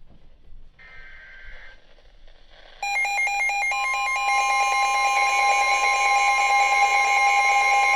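Emergency Alert System broadcast: a faint short burst of the SAME data header's warbling buzz, then, about three seconds in, a loud two-note attention tone starts. It stutters briefly and then holds steady, the signal that a new severe thunderstorm warning is about to be read.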